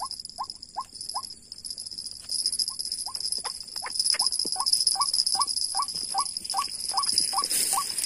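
Repeated white-breasted waterhen call from a lure recording played at a snare line: short rising notes, about two or three a second, that falter for a moment about 1.5 s in and then run on evenly, over a steady high insect drone.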